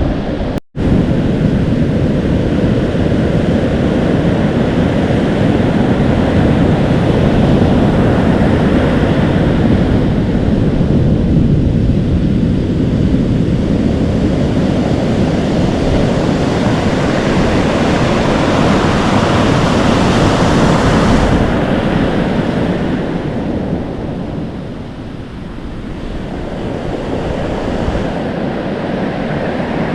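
Atlantic Ocean waves breaking, foaming and washing up the shore, with wind blowing on the microphone. The surf swells and eases, dropping lower for a few seconds a little before the end, and the sound cuts out for an instant just under a second in.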